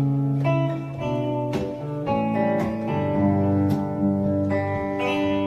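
Telecaster-style electric guitar playing the instrumental opening of a song: picked chords, a new one about every half second, left to ring into each other.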